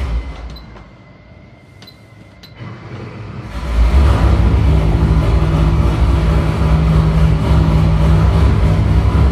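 V8 engine running on an engine dynamometer: quiet at first, then from about three and a half seconds in it runs loud and steady, held at one speed.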